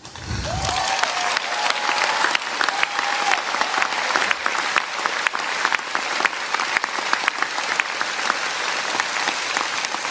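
A large audience applauding, the clapping swelling in just after the start and holding steady.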